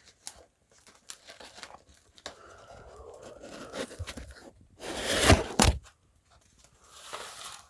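Packaging being torn open by hand: scattered rustling and crinkling, then a loud tearing rip about five seconds in, and more crinkling near the end.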